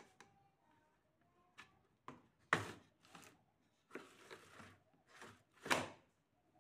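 Plastic side panel of a Symphony Touch 55 air cooler being pulled open and pushed shut by hand, making a series of short scrapes and rattles. The loudest come about two and a half seconds in and again near the end.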